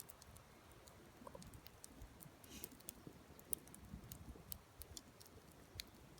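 Faint, irregular crackling and popping from a campfire with scallops grilling on it, with a brief soft hiss about two and a half seconds in.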